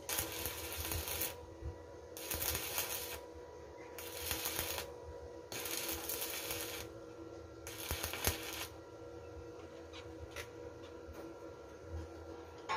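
Electric arc welding with a small inverter welder: the arc crackles and sizzles in five short runs of about a second each, with brief pauses between them. These are tack welds joining the steel rebar cage of a pipe post. Near the end the arc is off and only a few light metal clicks are heard.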